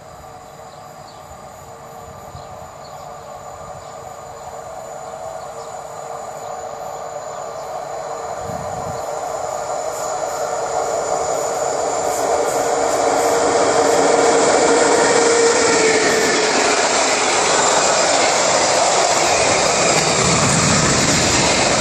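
An electric locomotive hauling a container freight train, approaching and passing through a station. A steady whine grows louder over about fourteen seconds, then gives way near the end to the broad noise of the container wagons rolling past close by.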